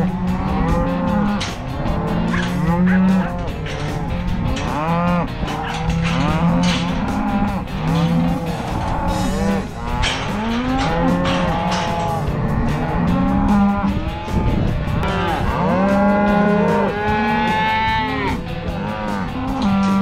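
A penned herd of cattle bawling and mooing, many calls overlapping without a break, some long and high, others low.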